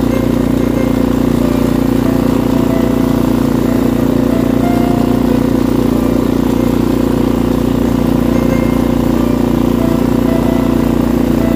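An engine running steadily at one constant speed, with an even hum and no revving.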